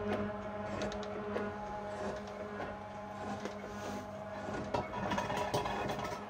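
Metal shaper running as it cuts an anvil: a steady machine hum under repeated short clicks and scrapes from the reciprocating ram and cutting tool.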